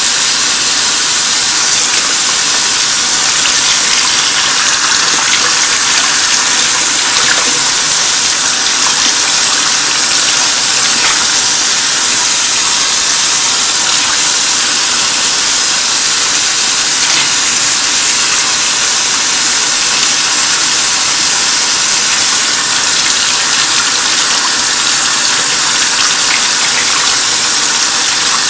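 Bathroom sink faucet running in a loud, steady rush into the basin, the stream splashing over hands and a makeup brush being lathered and rinsed under it.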